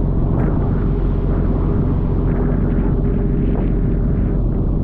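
Pole-and-line tuna boat's engine running steadily, with rushing, splashing water from the spray along the hull and a few brief louder splashes.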